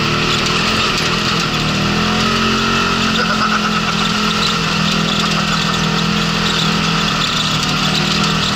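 Polaris RZR side-by-side's engine running steadily, heard from inside the open cab over a steady rush of tyre and wind noise.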